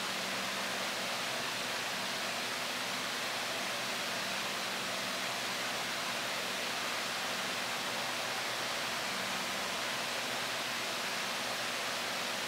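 Steady, even hiss of background noise with a faint low hum underneath; no separate brushstrokes stand out.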